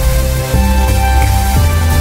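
Music with deep bass notes changing about every half second over held higher tones.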